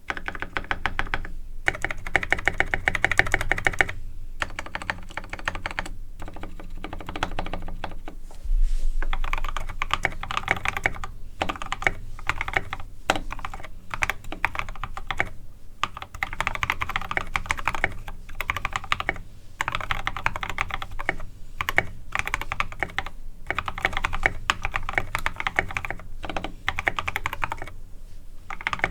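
Typing in quick runs with short pauses on a GK64x mechanical keyboard with lubed and filmed Novelkey x Kailh Cream linear switches, SA-profile keycaps and dampening foam. Its new Everglide stabilizers are quiet except for the spacebar, which is still on its stock wire and which the owner finds still a little rattly.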